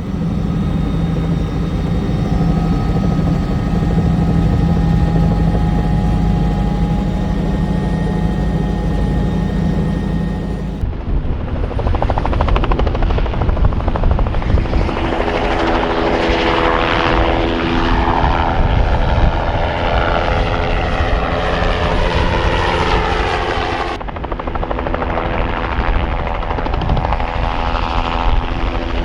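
Bell 505 Jet Ranger X helicopter running, turbine and rotor sound throughout. The sound cuts abruptly about a third of the way in and again near the end. In the middle part the tone sweeps up and down.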